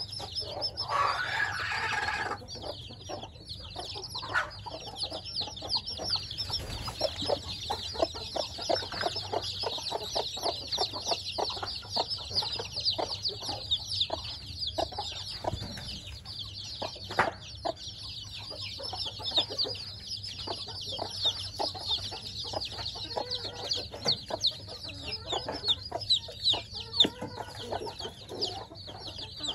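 A brood of week-old chicks peeping constantly in high, rapid chirps, with a mother hen clucking among them. A brief rustle about a second in.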